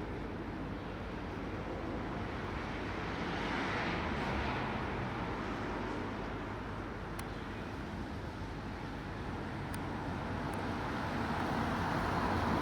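Steady road traffic noise, swelling as vehicles pass about four seconds in and again near the end.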